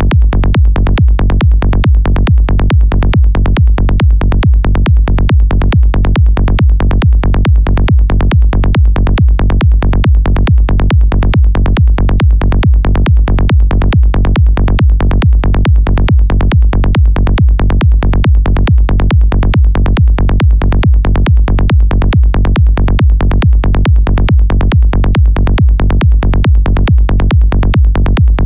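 A looping psytrance kick-and-bass pattern: a synthesized rolling bass from the Serum synth plays as a fast, even train of short, deep pulses against the kick.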